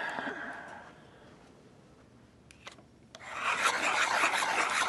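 A pencil scratches across paper in the first second. About three seconds in, a hand-crank pencil sharpener starts grinding a wooden pencil with a steady rasp as its crank is turned.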